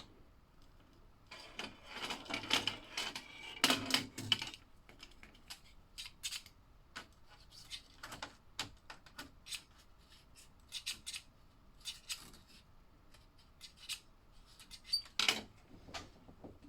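Small hard plastic parts being handled: a dense run of clicking and rattling for a few seconds near the start, then scattered single clicks and taps, with another cluster near the end. These are toy slot cars and track pieces being handled, with no car motor running.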